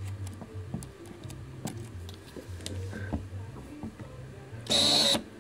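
Faint clicks and scratches of a toothpick pushing the small autofocus/manual switch inside a Canon EF 35-105 mm zoom lens, over a steady low hum. Near the end a loud buzz lasts about half a second.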